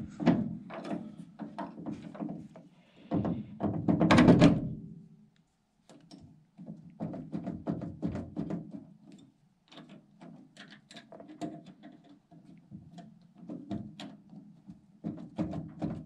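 Metal clicks, taps and knocks of an aftermarket chrome door handle and its loose pin being fitted onto the handle shaft of a 1952 Ford F1 door. There is a louder run of knocking about four seconds in.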